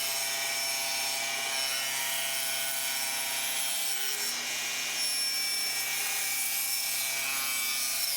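Table saw running steadily while cutting a quarter-inch rabbet along a cherry board, a constant motor whine over the noise of the blade in the wood.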